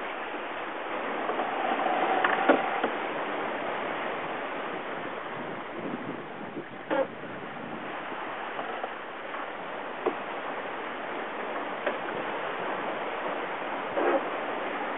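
Sea water rushing and splashing past a sailing yacht under way, a steady wash of noise, with a few short knocks or slaps spread through it.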